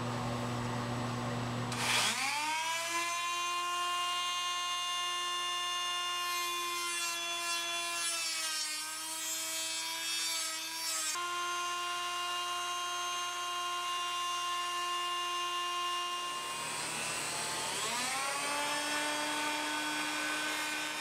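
Rotary tool with a small cutoff disc cutting through a metal rod: a steady high whine with many overtones that rises in pitch about two seconds in, wavers in the middle and rises again near the end. A low hum comes before it.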